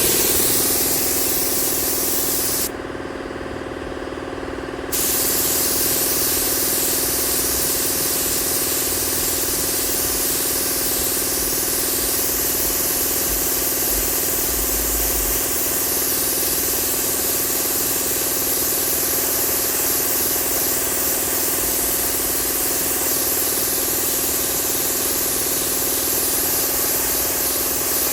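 Steady hiss of paint spraying over a constant mechanical hum. The hiss dulls and drops for about two seconds, starting about three seconds in.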